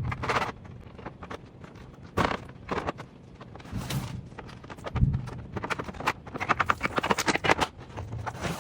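Hard 3D-printed plastic parts knocking and clicking as they are handled and fitted together, irregularly, with a quick run of clicks about six seconds in.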